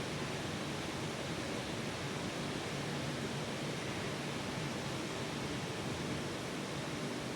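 Rain falling steadily, an even hiss with no separate drops or other sounds standing out.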